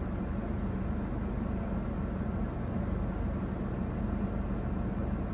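Steady low hum and rumble of a car with its engine running, heard from inside the cabin.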